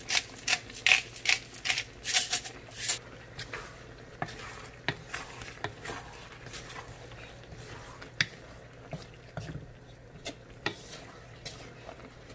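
A cooking utensil stirring a dish in a pan, with quick clicks and taps against the pan, about three a second at first and then fewer and more spread out.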